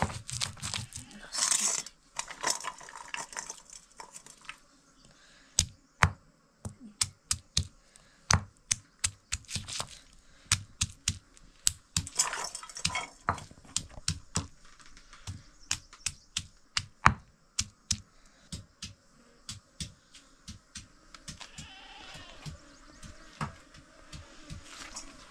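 A run of sharp knocks or taps, irregular at roughly two a second, beginning about five seconds in and thinning out after about twenty seconds, with rustling or scraping noise near the start.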